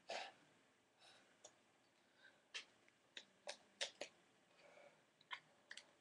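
Faint, irregular small clicks and taps, about a dozen in all: Magic: The Gathering cards in plastic sleeves and toploaders being handled and sorted.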